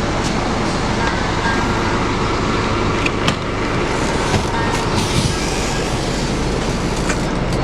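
Steady ride noise of a moving Scania K410 coach: engine and road rumble, with a few short rattles.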